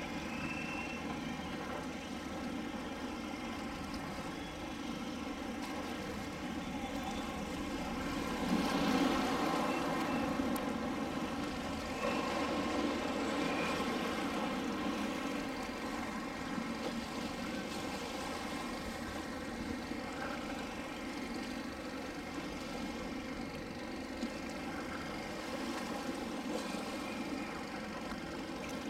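A heavy engine running steadily, a low drone with a steady hum over it, swelling louder for a few seconds about a third of the way in.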